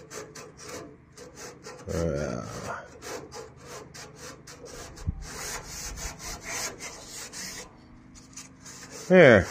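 Hand sanding with a folded sheet of sandpaper on a primed, louvred steel body panel: repeated scratchy rubbing strokes. Near the end, a short loud sound falls in pitch and stands out above the sanding.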